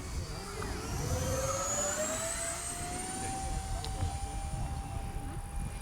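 Twin 40 mm electric ducted fans of a small RC Eurofighter Typhoon model jet whining in flight, the pitch rising over the first three seconds or so and then holding steady.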